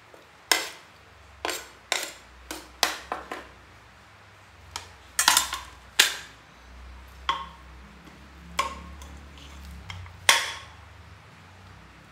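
Metal kitchen utensils and cookware clattering and clinking: about fifteen sharp knocks at irregular intervals, several with a short ring after them.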